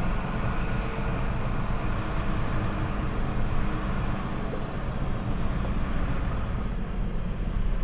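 Truck engine running and the cab rumbling as the lorry rolls slowly, heard from inside the cab: a steady low drone with no change in pitch.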